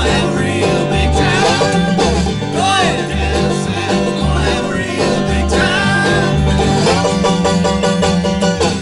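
An old-time bluegrass string band playing live: upright bass marking the beat under five-string banjo and acoustic guitar.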